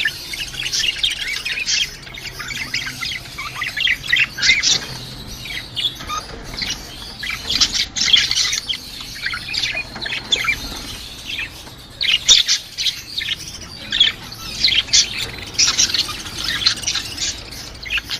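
Lovebirds chattering: rapid, shrill chirps and squawks in dense clusters with brief lulls.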